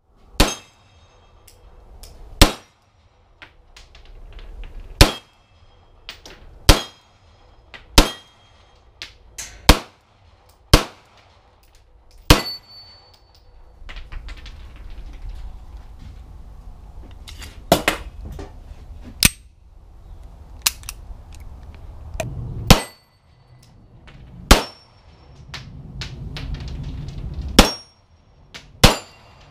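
Beretta 92 9mm pistol fired at a slow, uneven pace, about fourteen sharp shots, some a second apart and some several seconds apart. Some shots are followed by a short metallic ring as a steel plate target is hit.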